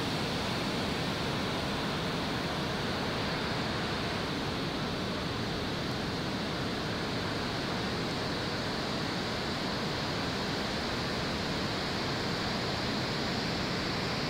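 Ocean surf breaking along a rocky shore, heard as a steady, even rushing noise with no distinct swells or crashes.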